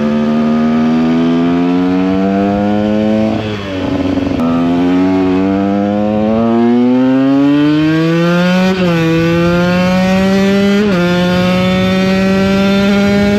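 KTM 125 EXC two-stroke single-cylinder engine under hard acceleration, heard from onboard: the engine note climbs, then drops sharply at each upshift, about three and a half seconds in, again around nine seconds and around eleven seconds, and runs steadily near the end.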